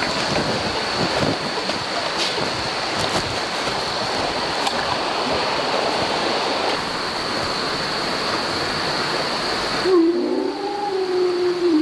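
Horror film soundtrack: a loud rushing hiss under a steady high-pitched whine, with a few faint clicks. About ten seconds in the rush cuts off suddenly and a low, held tone begins, wavering at first and then steady.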